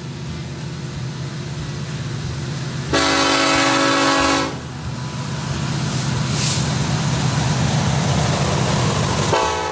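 BNSF diesel freight locomotives approaching and passing, their engines rumbling louder as they near. The locomotive horn sounds one long blast about three seconds in, and a second blast starts near the end.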